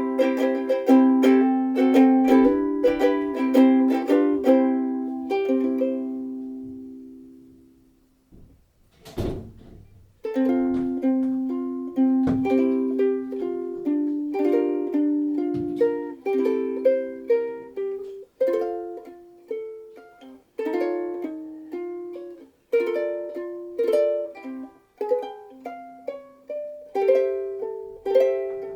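LUNA MV-2S soprano ukulele with a solid Honduras mahogany body and black nylon strings, strummed in quick chords. A last chord rings out and fades, there is a short thump about 9 seconds in, then it is played again, mixing chords with picked melody notes.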